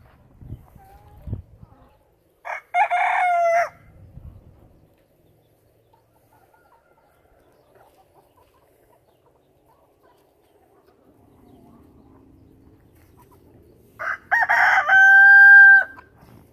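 Rooster crowing twice: a short crow about two and a half seconds in, and a longer one near the end that finishes on a long, steady held note.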